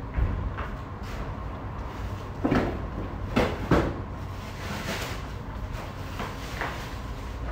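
Grocery items being pulled out of plastic shopping bags: a few dull knocks and thuds as a box is set down on a tile floor, and plastic bags rustling.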